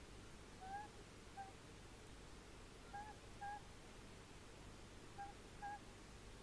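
Tawny owl calling faintly: three pairs of short, clear, pitched notes, each pair about two seconds after the last, over a steady hiss.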